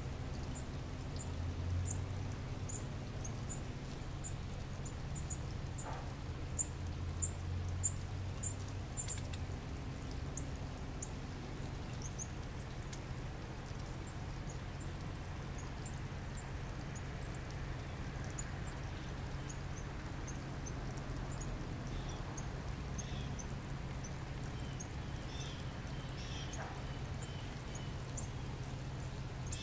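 Northern cardinals giving short, sharp, high chip calls, repeated irregularly and busiest in the first ten seconds, over a steady low hum.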